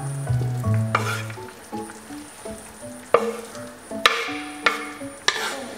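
Shredded boiled chicken pushed off a wooden cutting board into a pot of borscht: a few wet splashes and scrapes, the loudest about three and four seconds in. Soft background music plays under it.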